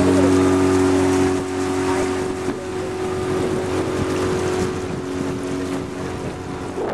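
Tohatsu 9.8 hp outboard running steadily with the boat under way, with water rushing along the catamaran's hull. The engine's tone is strongest for the first two seconds or so, then sinks under the water noise.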